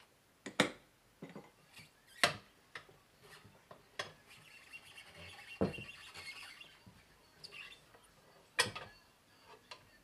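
Motorcycle tire being worked off its rim on a manual tire changer: a series of sharp metal knocks and clinks from the tire iron and rim, and a scratchy squeaking stretch in the middle as the rubber bead rubs over the rim.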